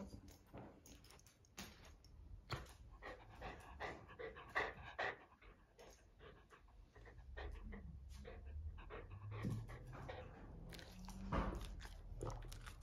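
A dog panting in quick short breaths, mixed with 'hee-hee' whines, as it waits eagerly for its dinner.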